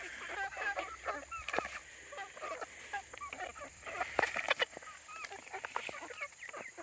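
A flock of young chickens peeping, many short calls that bend up and down in pitch, overlapping one another. Dry corn husks crackle now and then as ears of corn are shucked.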